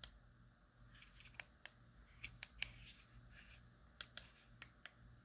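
Near silence with about a dozen faint, scattered small clicks and taps from handling a soundbar remote.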